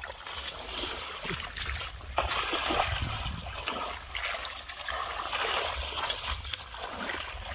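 Shallow muddy water splashing and sloshing irregularly as a person wades through it and gropes in it by hand, louder from about two seconds in.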